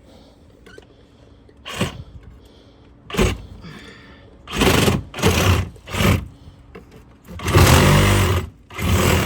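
A saw cutting at the nails of shingle siding in short, uneven strokes, about seven in all, coming closer together and longer toward the end.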